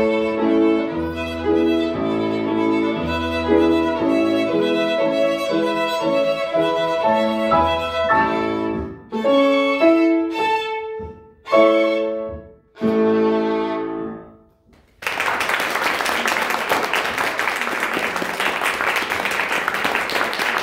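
Violin with piano accompaniment playing the closing bars of a fast showpiece, ending on a few separate, loud short chords. After a brief pause, about fifteen seconds in, audience applause begins and carries on steadily.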